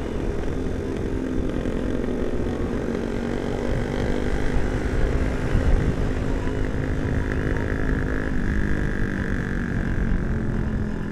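Motorcycle engine running steadily at cruising speed, heard onboard over a rush of wind. The engine note steps down slightly about eight seconds in.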